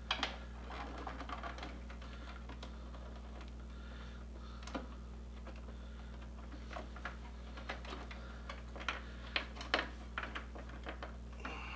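Scattered small clicks and taps as wires and a flathead screwdriver are worked into the screw terminals of a 3D printer's control board, with a few sharper clicks about nine to ten seconds in, over a steady low hum.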